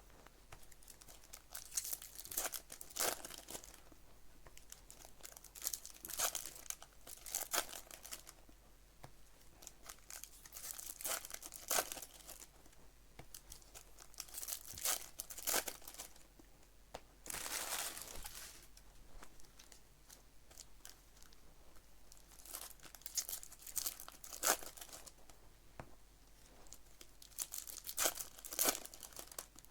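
2024 Bowman baseball card packs being torn open by hand, the foil wrappers ripping and crinkling in irregular bursts.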